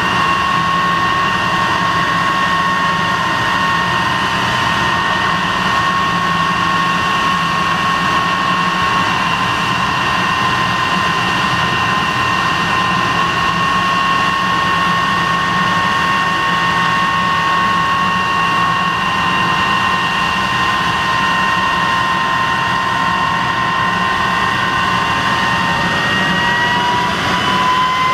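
De Havilland Venom's single de Havilland Ghost turbojet running on the ground: a steady high whine over a broad jet rush. Near the end the whine rises in pitch as the engine spools up.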